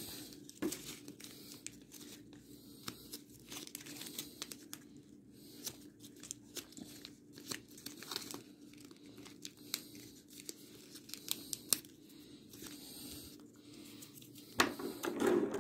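Plastic gift ribbon crinkling and rustling as it is folded into loops and twisted in the hands, with many small irregular crackles. It grows louder in the last second.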